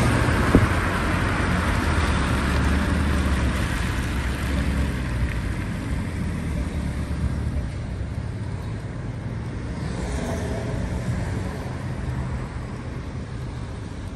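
Lamborghini Urus's twin-turbo V8 running low and steady at low speed, with tyre and traffic hiss from the wet road; the sound is loudest at the start and eases off. A short click about half a second in.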